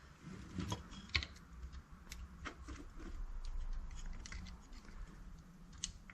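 Faint, scattered small clicks and ticks of hands handling a plastic wiring-harness connector and its metal terminal pin.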